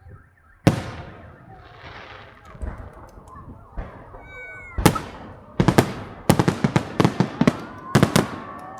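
Fireworks display: one loud shell burst about a second in, then from about five seconds in a rapid string of sharp bangs and crackling reports.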